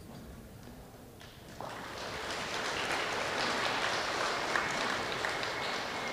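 Audience applauding: clapping starts about a second and a half in, swells, then fades near the end.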